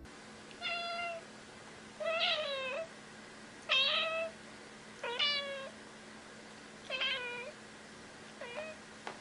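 Grey tabby cat meowing repeatedly: six short meows about a second and a half apart, the last one fainter.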